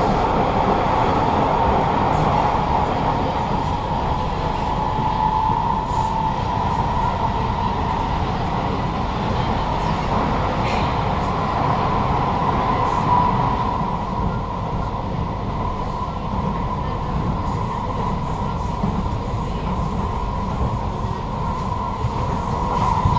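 Kawasaki-CRRC Sifang C151A metro train's traction motors humming with one steady tone while the carriage runs at speed, over continuous wheel and rail rumble, heard from inside the carriage. The hum is deeper than usual for this train type, which the uploader puts down to an unusually strong motor in car 2540.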